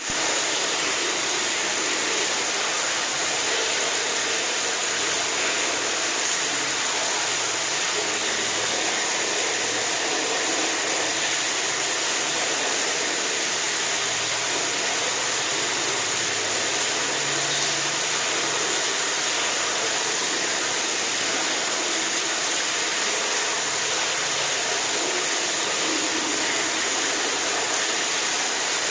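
Rushing water making a steady, even hiss with no breaks or changes.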